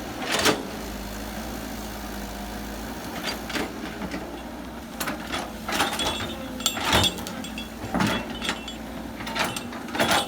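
Heavy construction machine's diesel engine running steadily, with a dozen or so sharp, irregular clanks and knocks, several coming close together in the second half.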